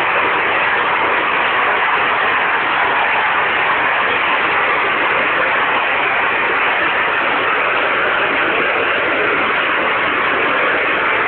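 Waterfall with water falling and splashing in a loud, steady rush that never changes.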